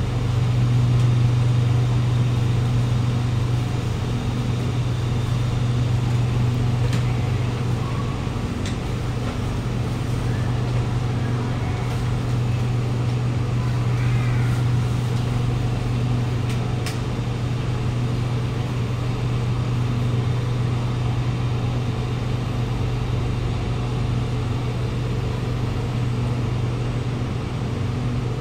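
Kawasaki Nippon Sharyo C751B metro train heard from inside the car, running at steady speed through the tunnel. Its traction motors and running gear make a loud, even, low drone.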